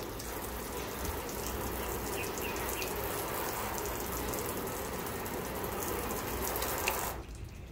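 Garden hose spray nozzle on a sprinkler pattern spraying water onto a car's hood: a steady hiss of spray on the metal that cuts off suddenly about seven seconds in.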